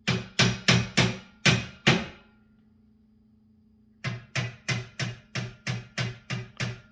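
Hammer striking a large nail into drywall to probe for a wooden stud behind it: six quick blows, a pause of about two seconds, then a steady run of about nine more at roughly three a second.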